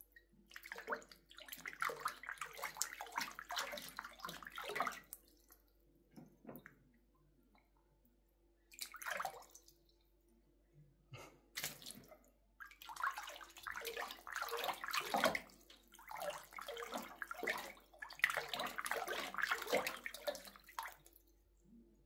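Water splashing and sloshing in a stainless-steel sink as a long-haired cat paws at it. The splashing comes in bursts with quiet pauses of a few seconds, then runs almost without a break through the second half.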